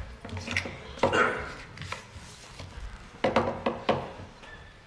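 A lectern-mounted gooseneck microphone being bumped and handled: loud knocks and rubbing thumps, one cluster about a second in and another past three seconds.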